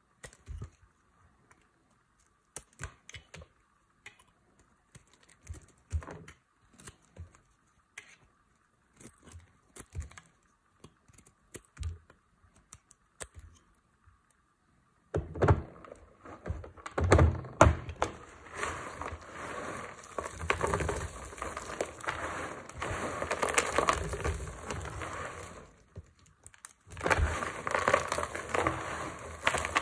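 Dry tar soap being shaved with a blade, giving sparse crisp clicks and cracks as curls break off. About halfway through this gives way to hands crushing dry soap chunks: a dense, continuous crunching crumble that stops briefly near the end, then resumes.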